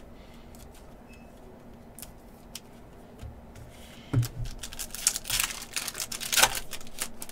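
Foil wrapper of a Panini Contenders basketball card pack crinkling and tearing as it is ripped open by hand, starting about four seconds in and loudest near the end. Before that, only a few soft handling clicks.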